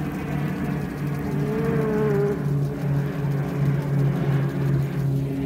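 A motor running steadily, with a low hum that pulses evenly several times a second and a brief wavering higher tone about two seconds in.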